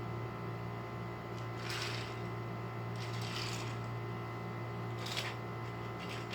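Steady low hum, with three brief rustles of something being handled.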